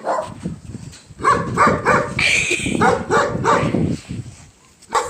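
A dog barking in quick runs of short barks, about three a second, with a longer, higher call just after two seconds in.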